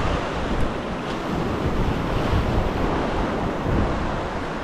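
Ocean surf washing and breaking over rock ledges, a steady rush of water, with wind buffeting the microphone.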